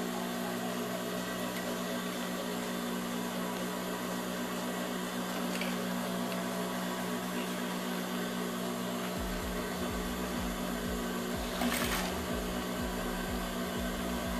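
Industrial sewing machine's motor humming steadily; about nine seconds in, a run of quick low thuds begins as the machine stitches through the leather jacket cuff.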